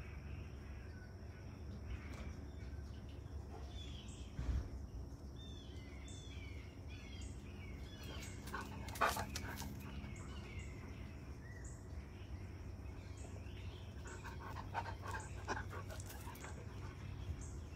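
Birds chirping in short falling calls, with faint, evenly repeated high ticking and sounds from a dog. A brief rattling burst comes about nine seconds in, and a cluster of clicks near the end.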